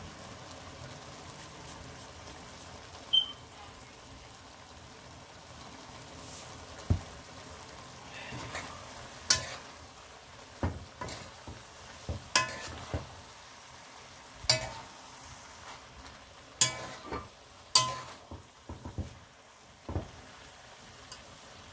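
A metal spoon stirs greens and shrimp in a large metal pot, clinking and scraping against its sides over a steady sizzling hiss. The knocks come irregularly, mostly in the second half.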